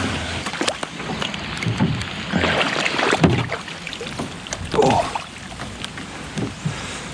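Kayak paddle strokes in the water: irregular swishes and splashes, the heaviest about halfway through.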